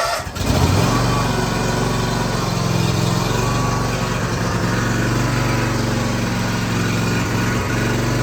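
John Deere X300 lawn tractor's engine catching just after being cranked and then running steadily with the choke pulled and the throttle at half. It starts after its throttle and choke lever was replaced.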